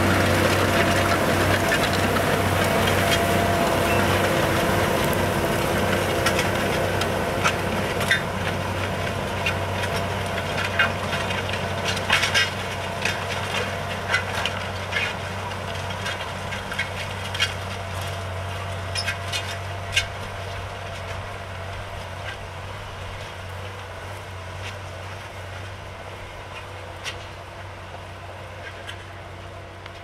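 Farm tractor's diesel engine running steadily under load while pulling a disc harrow through dry soil, growing gradually fainter. Scattered sharp knocks and clanks are heard, mostly between about 8 and 20 seconds in.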